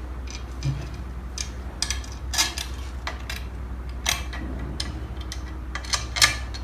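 Screws and coil springs clinking and clicking against a 3D printer's heated bed plate as they are handled and fitted, in irregular light clicks with a few sharper clinks.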